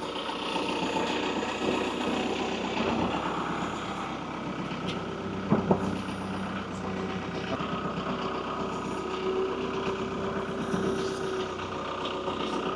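Tractor engine running steadily while it works the ground, with one short knock about five and a half seconds in.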